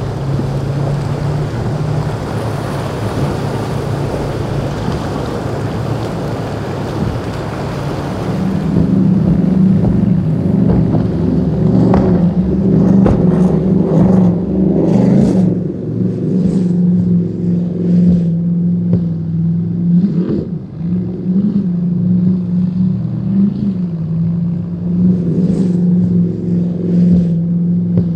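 Powerboat engines running hard through rough inlet waves: at first wind and water spray over an engine hum, then after about eight seconds a louder, steady high-performance engine drone from a Cigarette offshore powerboat takes over, with the hull slapping and splashing on waves now and then.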